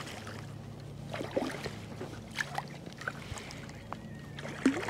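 A hooked bass splashing at the water's surface as it is played in to the bank: a few small splashes and sloshes over a low steady hum.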